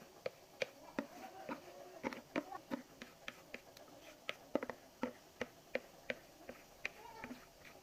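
A spatula tapping and scraping against a mixing bowl as cake batter is scraped out into a baking pan: quick, irregular sharp taps, about two or three a second.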